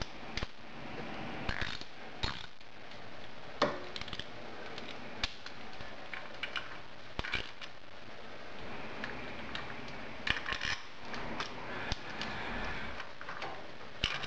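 Scattered metal clicks and clinks of a ratchet with a 5mm hex bit loosening the bolts of a motorcycle engine's cam cover, with the loosened bolts handled by hand. There are a few short runs of quick clicking.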